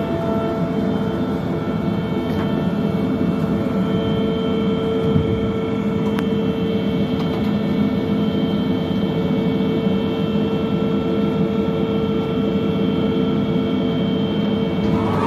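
Steady drone of shipboard machinery: a low rumble with a strong constant hum and several higher steady tones, unchanging throughout.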